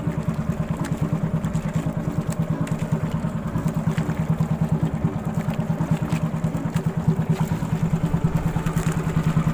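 Small engine of a motorized outrigger boat running steadily, with a rapid, even chugging beat.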